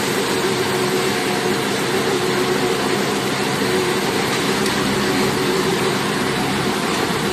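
A 70-type forage baler machine running steadily, a loud even mechanical drone with a constant pitch.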